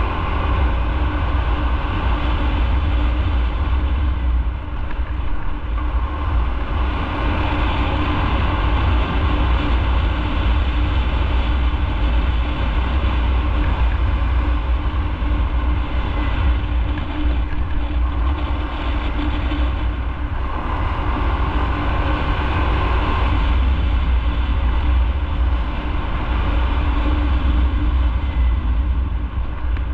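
Motorcycle riding heard from an onboard camera: a steady low wind rumble over the engine running at road speed. The mid-range swells briefly twice, about 7 and 21 seconds in.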